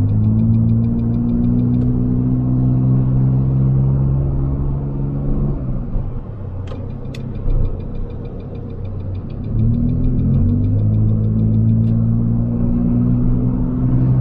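A small Nissan car's engine heard from inside the cabin, running steadily while driving. About six seconds in, the engine note drops away for a few seconds as the throttle is eased, with a couple of sharp clicks, then it comes back with a rising pitch near the ten-second mark. A fast, light ticking rides over the engine sound at times.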